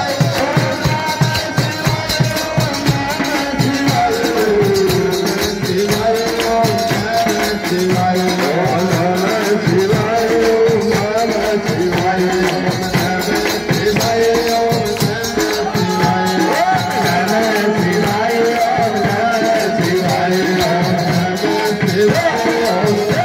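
Devotional kirtan music: a melody over a steady drum beat and hand percussion, with the beat clearest in the first few seconds.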